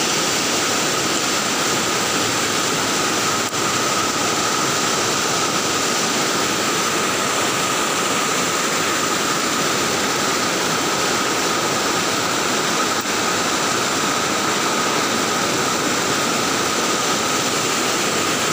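Floodwater in a swollen river rushing and churning against the bank, a steady loud wash of noise.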